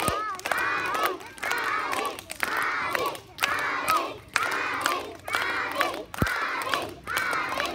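A large group of young children shouting a short chant in unison, repeated in quick phrases about once a second.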